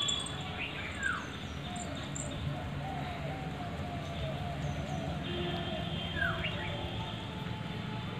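Outdoor birds calling: a few falling whistled notes and a run of short repeated chirps in the middle, over a steady low background hum.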